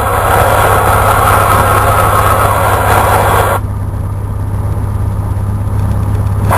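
Cessna 172's piston engine and propeller running steadily, heard inside the cabin. A hiss over it cuts off suddenly about three and a half seconds in.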